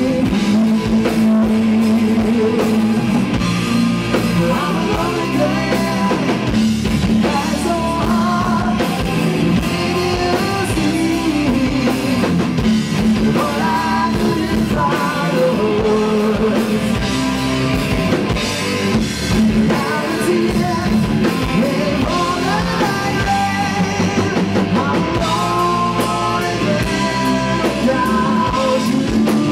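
Rock band playing a song: a man singing lead over electric guitar, bass guitar and a drum kit.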